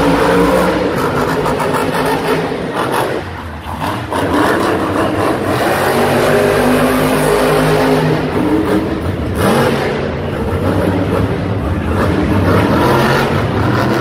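Monster truck engines, supercharged V8s, revving hard as the trucks drive across the dirt, the engine pitch repeatedly climbing and falling. The level dips briefly about three seconds in, then the revving picks up again, with a sharp rise near ten seconds.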